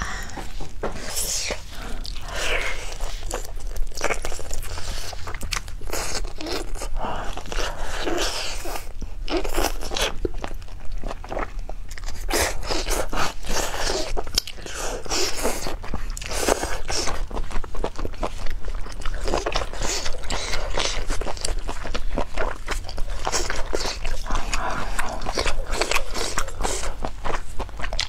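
Close-miked biting and chewing of a cooked octopus tentacle: a dense, irregular run of wet mouth clicks and smacks.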